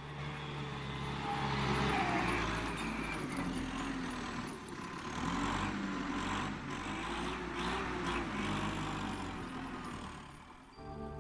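Engine noise that swells about two seconds in, then rises and falls unevenly.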